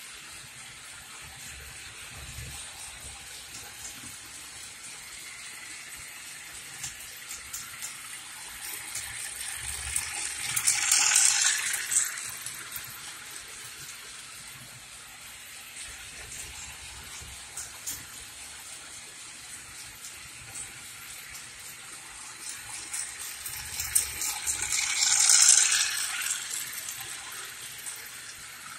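Toy train running on its track: a steady rattling hiss with scattered small clicks, which swells loudly twice, about fourteen seconds apart.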